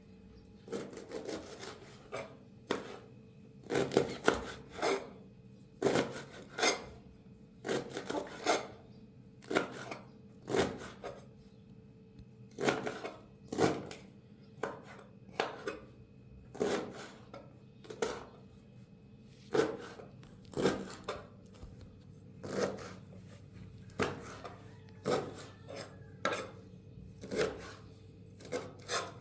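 Knife chopping chicory, a long run of sharp strokes at an uneven pace of roughly one or two a second, some in quick pairs.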